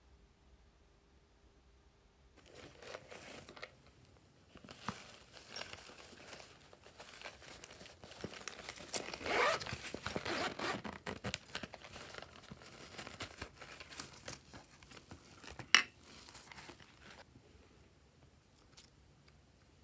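Zipper on a hard plastic donut-shaped case being run open, with rattling and scraping as the case is handled, busiest about halfway through. A single sharp click comes near the end, then the handling stops.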